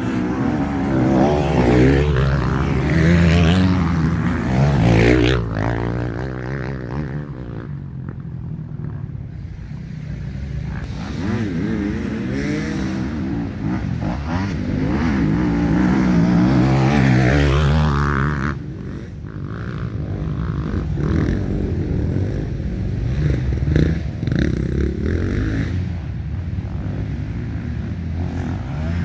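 Several motocross dirt bikes revving and changing pitch as they ride the track and pass one after another. It is loudest in the first few seconds and again in the middle, and drops briefly just after that.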